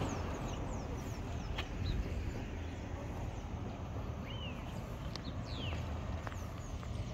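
Birds chirping with many short, high, downward-sweeping calls, over a steady low rumble of outdoor wind.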